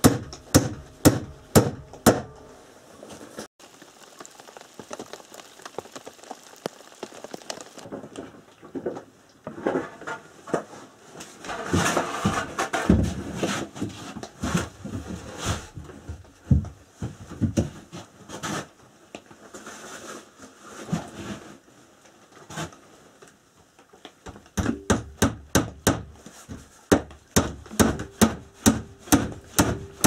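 Hammer driving nails into wooden boards, at about three strikes a second at the start and again from about two-thirds of the way through, with scattered knocks in between.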